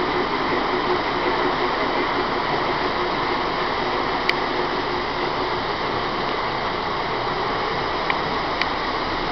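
Model trains running on the layout's track: a steady whirring rumble with a few faint clicks, about four seconds in and twice near the end.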